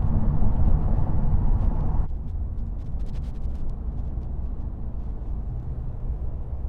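Steady low road and engine rumble inside a moving car, dropping suddenly to a quieter rumble about two seconds in, with a few faint clicks after.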